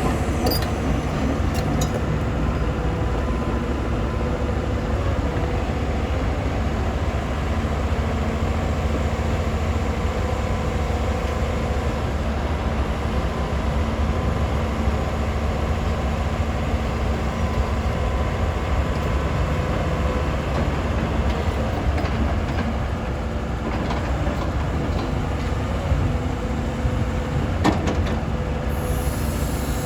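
Case CX240 excavator's diesel engine running steadily, with a faint steady whine above the engine's low drone and a few light knocks near the end.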